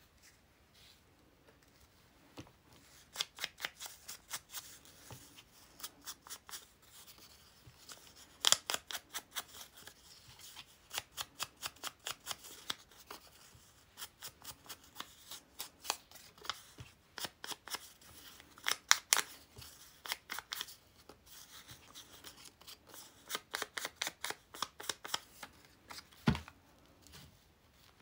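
Small ink pad tapped rapidly against paper in quick runs of light taps, several a second, with pauses between the runs and one heavier thump near the end.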